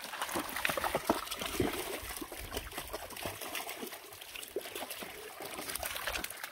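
Dogs wading and splashing through a shallow, rocky creek, with irregular small splashes over the steady trickle of water running between the stones.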